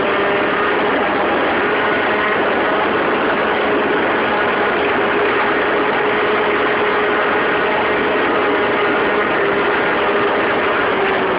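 Modified Peugeot 103 RCX moped's 50cc two-stroke engine with gearbox, running flat out at speed. Its whine holds a steady pitch over a dense rush of wind and road noise.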